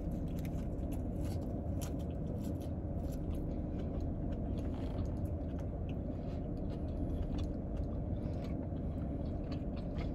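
A person chewing a bite of roast beef sandwich close to the microphone: soft wet mouth sounds and scattered small clicks. Underneath is a steady low hum in the car's cabin.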